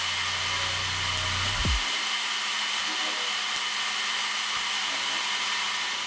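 TIG welding arc on steel tubing, a steady hiss with a thin high whine in it. A low hum underneath cuts off about two seconds in.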